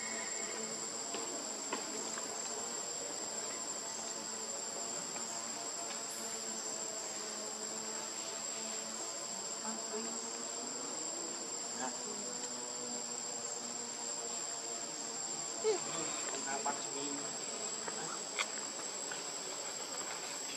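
Steady, high-pitched drone of insects, with a few soft clicks and taps, the loudest about three-quarters of the way through.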